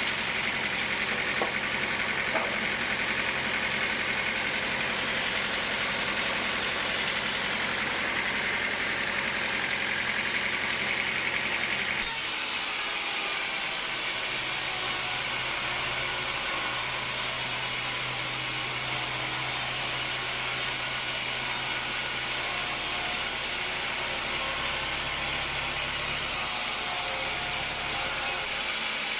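An engine running steadily, with a mechanical hum and hiss. The sound changes abruptly about twelve seconds in to a lower, steadier engine hum.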